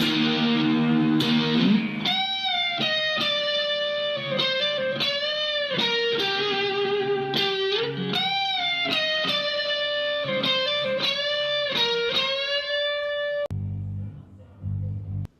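Electric guitar music: strummed chords for about two seconds, then a single-note lead line with pitch bends that stops about 13 seconds in. A short low hum follows.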